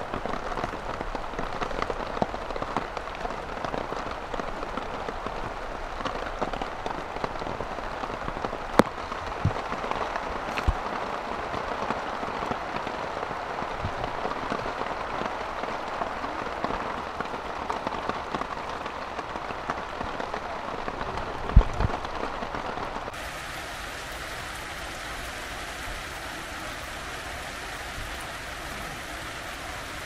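Heavy rain falling on tent fabric and a tarp: a steady hiss of rain with a few sharper drop hits. A little over two-thirds through, the sound abruptly becomes quieter and thinner.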